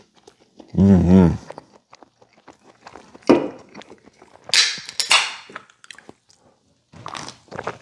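A pull-tab can of ginger ale opened, letting out a fizzing hiss in two quick spurts about halfway through. Before it come a short hummed "mmm" while chewing and a sharp knock.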